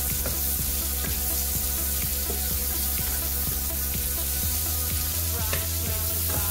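Sliced onions and garlic sizzling in hot oil in a frying pan, stirred with a wooden spoon.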